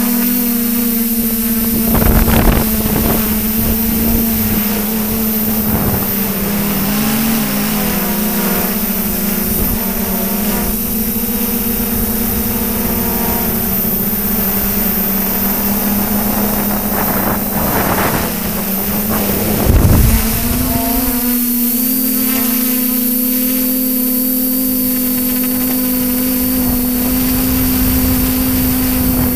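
Multirotor drone's propellers and electric motors running in flight, heard from the camera on the drone itself: a loud, steady hum whose pitch wavers as the motors adjust, stepping slightly higher with a thin high whine added about two-thirds of the way through. Two brief whooshes break in, one about two seconds in and one near the two-thirds mark.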